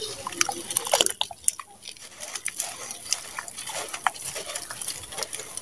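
Hands squeezing and crumbling sand-cement in a bowl of muddy water: irregular wet squelches and gritty crackles, with a cluster of louder crackles about a second in.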